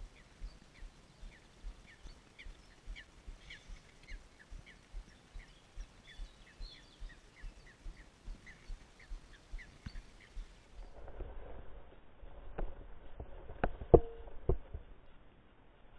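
Baitcasting reel ticking steadily, about two to three clicks a second, as line is wound in. Then water splashes as a hooked pike thrashes at the surface beside the float tube, with a few sharp splashes or knocks, the loudest near the end.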